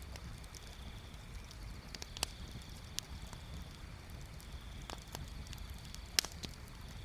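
Wood bonfire crackling: scattered sharp pops and snaps over a low steady rumble, the loudest pop about six seconds in.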